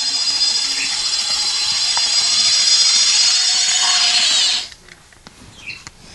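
Bachmann HO-scale Diesel model locomotive running on its track: a steady high-pitched motor whine with wheel noise, which cuts off suddenly about four and a half seconds in. A few small clicks of the model being handled follow.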